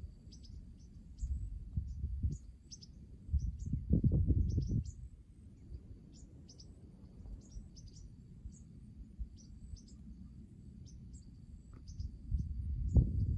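Birds chirping with short, repeated high notes over a thin, steady insect whine, broken by low rumbling gusts of wind on the microphone twice early on and again near the end.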